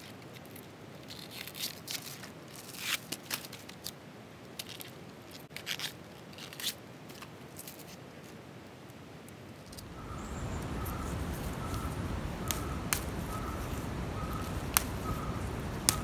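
Banana stem being peeled by hand: scattered crisp cracks and tearing sounds as the fibrous outer sheaths snap and strip off. About ten seconds in, a steady rumbling rustle starts, with a faint short chirp repeating about one and a half times a second.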